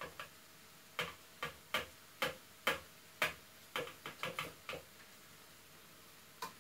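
Eggs and parsley being beaten by hand in a plastic measuring jug: a run of sharp, irregular taps of the utensil against the jug, about two a second, stopping around five seconds in, with two more taps near the end.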